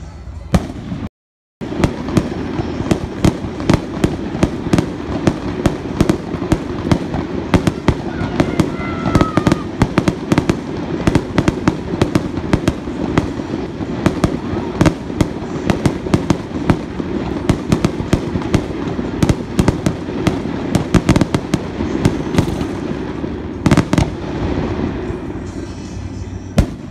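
Aerial fireworks shells bursting in a rapid, continuous run of bangs and crackles. The run stops about 24 seconds in, leaving a few last bangs.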